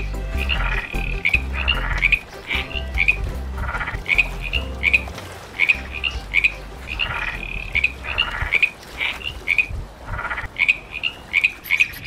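Frog croaking: short, high chirping calls repeated a few times a second in runs, over a low rumble.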